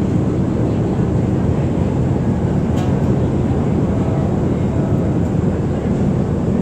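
River ferry's engine running, a steady low rumble.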